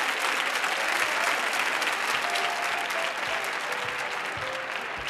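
Audience applauding steadily, the clapping easing slightly towards the end, with music playing quietly under it.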